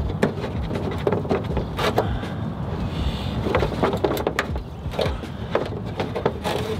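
Irregular small clicks and knocks of a hand tool working plastic fender-liner clips loose at a car's front wheel arch, over a steady low rumble.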